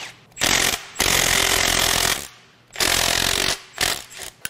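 Cordless impact wrench hammering on a cap bolt in the bottom end of a cast-iron big-block Chevrolet 454, in three bursts of about a second or less each and a short fourth near the end.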